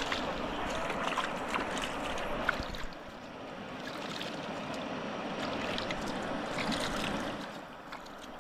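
River water splashing and dripping over the steady sound of the flowing river. The splashing is busiest at first and eases about three seconds in.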